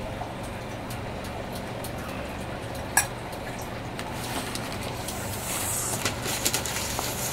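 A steady low hum throughout, a single sharp clink about three seconds in, then crinkling and rustling of paper from about halfway on as old grease is wiped off the torque drive's shaft.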